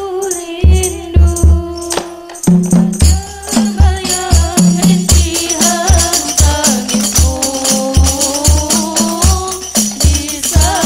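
Hadroh ensemble playing: hand-struck frame drums (rebana) with deep bass-drum strokes about twice a second and jingling tambourine, under girls' voices singing a melody into microphones.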